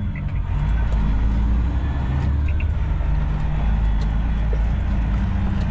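Diesel semi-truck engine running steadily at road speed, heard from inside the cab, with a few sharp rattles as the truck rides over rough, broken pavement.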